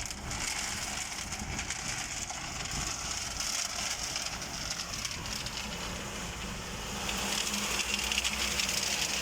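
Tractor-driven transit concrete mixer running: the drum turns off the tractor's PTO and the engine runs steadily, with a continuous hiss and rattle over a low hum. It gets slightly louder about seven seconds in.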